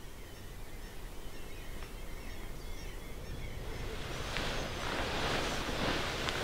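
Faint birds chirping in short high calls, then from about halfway through the louder rustling of a duvet and bedding as a sleeper rolls over in bed.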